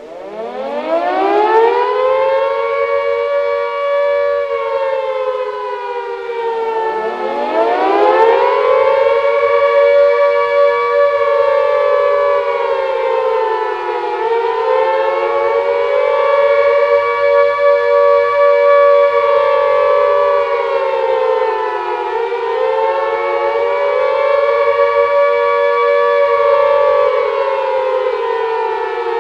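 Air raid warning siren of the British wartime kind, recreated: it winds up from a low pitch over the first two seconds, then wails in slow falls and rises about every seven seconds, two close tones sounding together.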